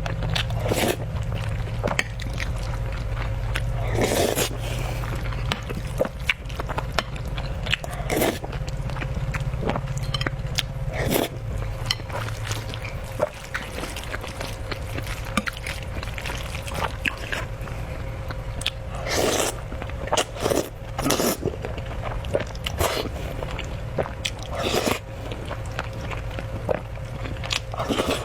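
A person eating a soft rice soup up close: chewing and mouth sounds, with scattered sharp clicks and scrapes at irregular intervals.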